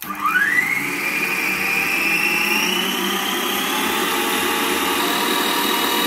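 1000-watt electric stand mixer running, its wire whisk beating cake batter in a steel bowl. The motor whine starts at once and rises quickly, climbs again to a higher speed about two to three seconds in, and then holds steady.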